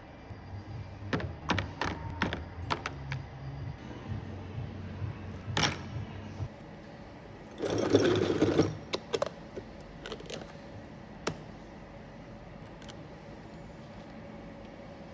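A run of sharp clicks and knocks from hard parts being handled, with a louder knock about five seconds in and a one-second burst of noise about eight seconds in, then a few more clicks before it goes quieter.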